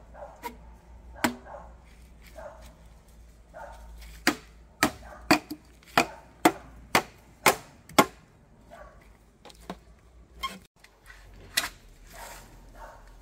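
Sharp chopping strikes: a few scattered ones, then a steady run of about eight, two a second, in the middle, then a few more near the end.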